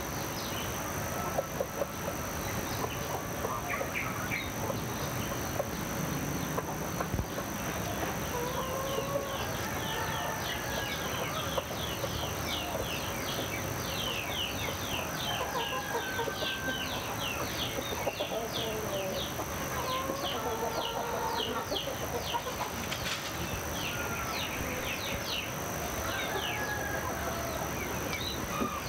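Chickens calling every few seconds, each call a curved, drawn-out cry, over a fast, continuous high chirping of small birds that sets in about a third of the way through. A steady high-pitched whine runs underneath.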